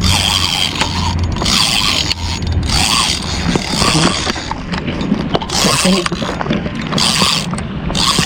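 Spinning fishing reel being cranked to retrieve a lure, its gears and line rolling in uneven bursts about once a second.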